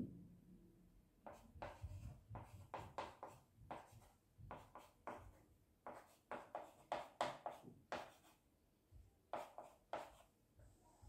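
Chalk writing on a small blackboard: a run of short scratchy strokes with brief pauses between letters. A soft low thump comes right at the start.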